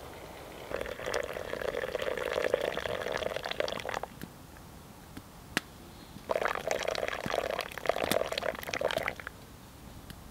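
Water poured from a metal pot into a metal mug in two pours of about three seconds each, the second starting about six seconds in, with a single sharp tap between them.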